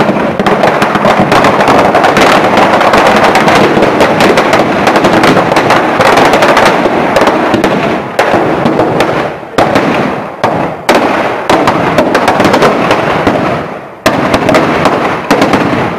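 Firecrackers packed inside a burning Ravana effigy going off in a dense, rapid crackle. After about eight seconds it breaks into separate rattling bursts with short gaps between them.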